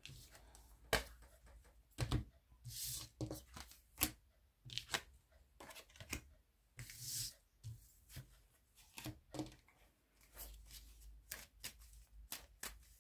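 A tarot deck being shuffled and handled by hand: scattered taps and slaps of the cards, with two short hissing riffles, about three seconds in and again about seven seconds in.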